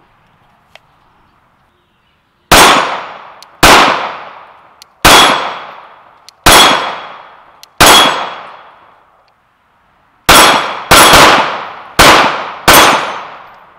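Glock 19 Gen 5 9mm pistol being fired about ten times, each shot a sharp crack with a long fading echo. The first five shots are evenly spaced about a second and a half apart. After a short pause comes a quicker string of about five follow-up shots.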